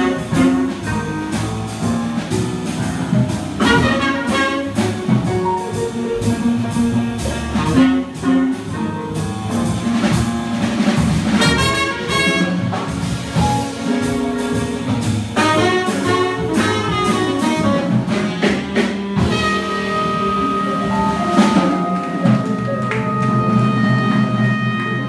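Live jazz sextet of trumpet, tenor saxophone, guitar, piano, upright bass and drums playing a blues. The horns hold long sustained notes over the last few seconds.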